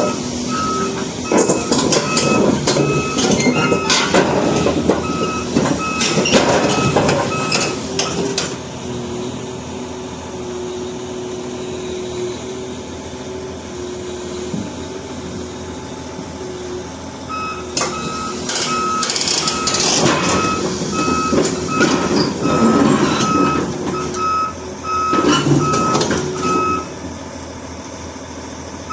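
Heavy-equipment reversing/travel alarm beeping steadily, nearly two beeps a second, over a running engine, with loud clattering in two long stretches separated by a quieter spell of engine alone, typical of a large tracked excavator moving onto a truck.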